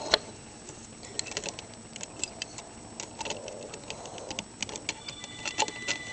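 Plastic Lego bricks and a Lego chain clicking and clattering as hands handle the Skull Motorbike model, in many small irregular ticks. Near the end a steady electronic tone sets in: a phone starting to ring.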